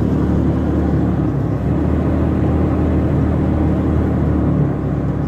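A van's engine running and road noise heard from inside the cabin while driving at low speed: a steady low hum.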